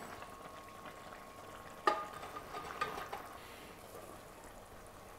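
Butter melting with a faint sizzle in a stainless steel saucepan while a wooden spoon stirs it, the start of a roux for béchamel. A sharp knock about two seconds in, then a few lighter clicks.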